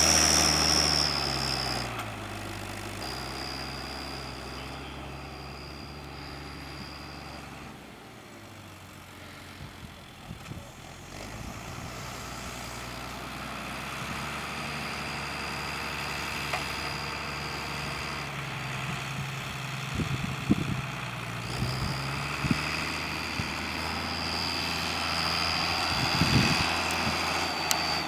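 Case International 956XL tractor's six-cylinder diesel engine working a reversible plough, with a high turbo whistle that comes and goes. The engine fades as the tractor moves away, is faintest a little before the middle, then grows louder as it comes back, with a few short clunks in the last seconds.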